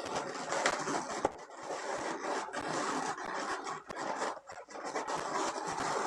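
Latex balloons being handled and twisted, rubbing and scraping against each other and the hands in an irregular rustle with small clicks.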